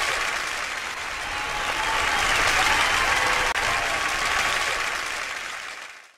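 Audience applauding, swelling in the middle and then fading out near the end.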